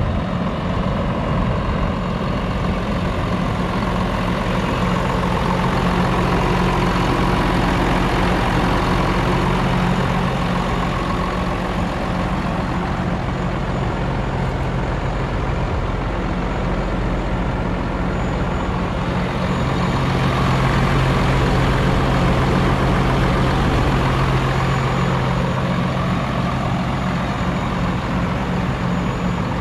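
Hino J08E inline-six turbo diesel engine of a 2015 Hino 258ALP medium-duty truck idling steadily with a low, even hum.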